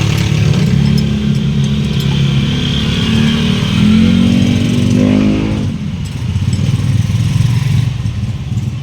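Six-cylinder engine running, its pitch rising as it revs up and then falling back to idle about five and a half seconds in. Its valve clearances are being adjusted to cure a knocking at the air cleaner.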